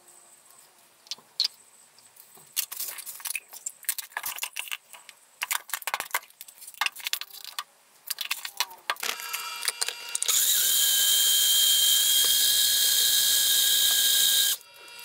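Magic Bullet blender running for about four seconds with a steady high whine, starting about ten seconds in and cutting off abruptly, as it blends an avocado protein shake. Before it come scattered clicks and clatter from a spoon and scoop working the ingredients into the blender cup.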